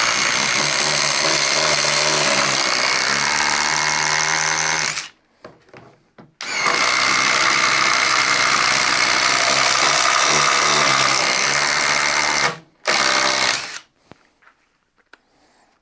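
DeWalt DCF840 brushless impact driver hammering under load as it drives a long bit into stacked plywood. It runs about five seconds, pauses, runs about six seconds more, then gives one short final burst and stops.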